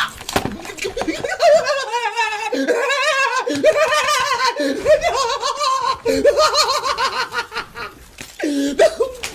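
A person laughing hard in long, high-pitched, wavering peals that run almost without a break.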